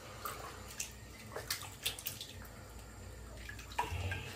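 Faint splashing and dripping of bathwater in a filled bathtub as a cat moves through the water, a few small scattered splashes.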